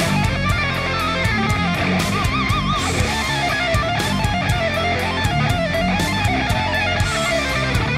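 Background rock music with electric guitar over a steady drum beat; a lead guitar note wavers with vibrato about two seconds in.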